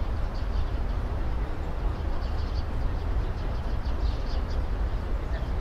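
Steady low rumble of diesel freight train locomotives, with short high chirps coming and going above it.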